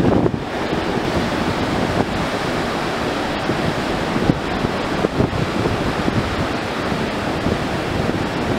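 Surf breaking and washing steadily onto a sandy beach, with wind buffeting the microphone.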